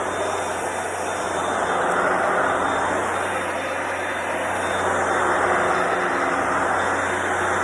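Hoover PowerDash Pet carpet cleaner running, a steady motor hum under a loud rushing suction noise that swells and eases every few seconds.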